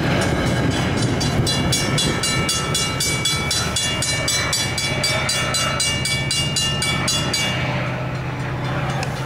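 Metra commuter train pulling away, its bilevel cars rumbling past on the rails and fading as they recede. Over it a fast metallic ringing repeats several times a second and stops about seven and a half seconds in.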